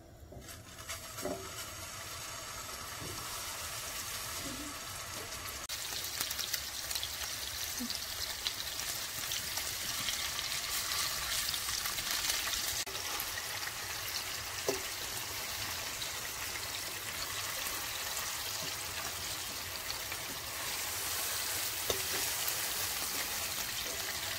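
Beef seekh kebabs shallow-frying in oil in a nonstick pan: a steady sizzle that builds over the first several seconds. A few light clicks of tongs and a fork against the pan are heard as the kebabs are turned.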